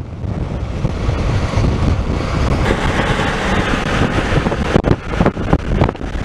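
Road and wind noise from a moving vehicle, with wind buffeting the microphone, and a few sharper gusts near the end.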